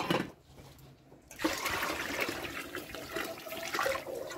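Broth poured from a small aluminium pot into a large pot of rice porridge: a steady splashing pour that starts about a second and a half in and keeps going.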